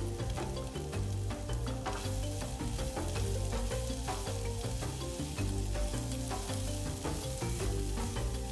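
Food sizzling in a hot frying pan as it is stirred, with irregular clicks and scrapes of the utensil against the pan. Background music plays underneath.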